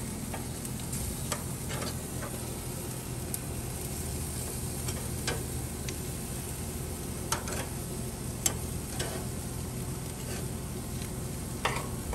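Bone-in pork chops sizzling on a gas grill as metal tongs turn them, with scattered clicks and scrapes of the tongs against the grates, the loudest about two-thirds of the way through.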